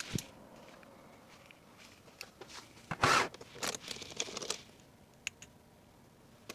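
Small stationery items and their plastic wrapping being handled and packed: a short rustling swish about three seconds in, lighter crinkles after it, and a sharp click a little after five seconds.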